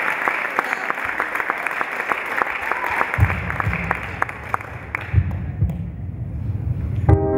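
Audience applauding, the clapping thinning out and fading by about five seconds in, with a low rumble underneath from about three seconds. Right at the end tango music with piano begins.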